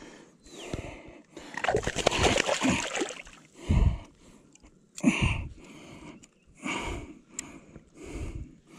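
Water splashing and sloshing as a small Murray cod is dipped and swished in the shallows by hand. The splashes come in a series of short bursts, the longest about a second and a half in.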